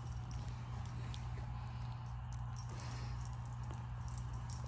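Faint small sounds from a pile of young Pomsky puppies: scattered soft clicks and ticks over a steady low hum.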